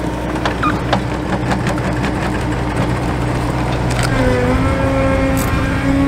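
John Deere 317G compact track loader running under load as it pushes a dirt pile with its bucket: a steady engine drone with a whine over it and scattered knocks and clanks. The pitch sags briefly about four seconds in, then recovers.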